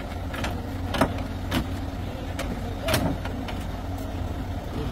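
Truck-mounted crane's engine idling steadily, with several sharp knocks over it, the loudest about a second in and about three seconds in.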